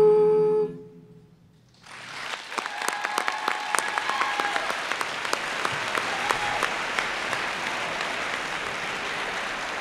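An a cappella group's closing held chord cuts off, and after a brief pause the audience breaks into applause with some cheering, which goes on steadily.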